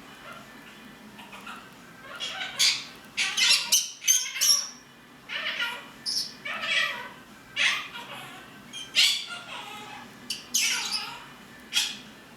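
Pet parrots calling: a conure gives repeated short, harsh squawks, and a Quaker parrot says "peek-a-boo" in a silly voice about halfway through.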